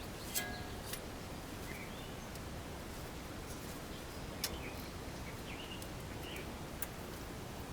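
Steady outdoor background noise with a few short, high bird chirps, and three sharp clicks, about half a second, four and a half and seven seconds in.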